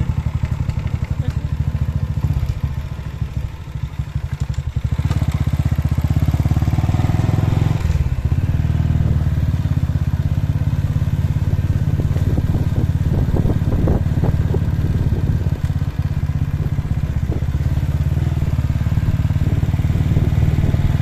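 Small motorcycle engine running as it is ridden. It eases off about three seconds in, then picks up again with its note rising for a few seconds, and runs steadily after that.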